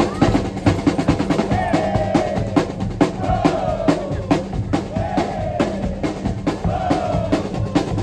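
Loud music with fast, dense drum hits over a heavy steady bass, and a short falling melodic phrase that repeats four times.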